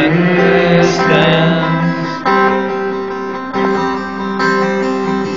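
Live acoustic guitar strumming chords, with a voice singing over it in the first couple of seconds.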